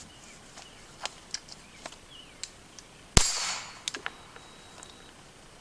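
A single shot from a Ruger 22/45 Mark III semi-automatic pistol firing .22 LR, about three seconds in, a sharp crack with a short echoing tail.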